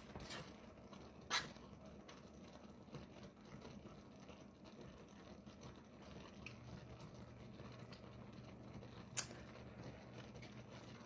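Near silence: quiet kitchen room tone with a faint click a little over a second in and another near the end, and a faint low hum that comes in about midway.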